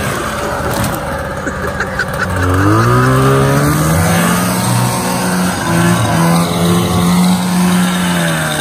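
Snowmobile engine running, revving up about two and a half seconds in and then holding a steady high pitch.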